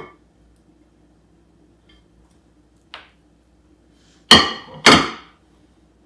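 A faint click, then two hard knocks of kitchenware against a countertop about half a second apart, each ringing briefly.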